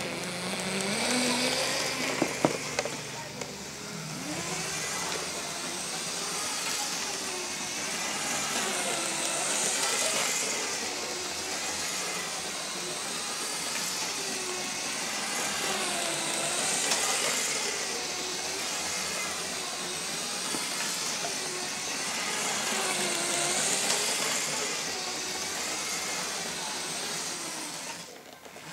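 LEGO 9-volt train motor in the BNSF locomotive whining as the train runs around an oval of plastic track, its pitch wavering up and down again and again, the sound swelling about every seven seconds as the train circles past. A few sharp clicks come about two seconds in.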